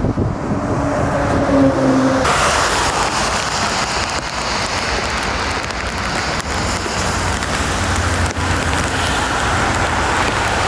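Twin-engine jet airliner climbing out at takeoff power: a low engine rumble carrying a steady tone. About two seconds in, the sound cuts abruptly to a steady hiss of heavy rain and wind over a low jet rumble as an airliner approaches.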